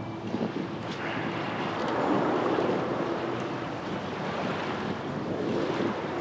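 Wind rushing across the microphone, with waves washing at the shore.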